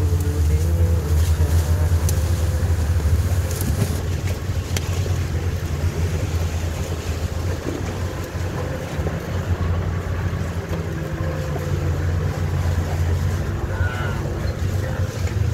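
Off-road 4x4 engine running at low speed on a dirt track, a steady low rumble with rustling and occasional knocks over it.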